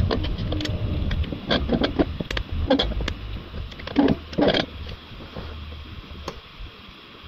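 Scattered clicks and knocks of a metal paintless-dent-repair glue-pulling lifter being handled and set in place over a glue tab on the car body. They are busiest in the first half and die away after about five seconds, with a last single click near the end.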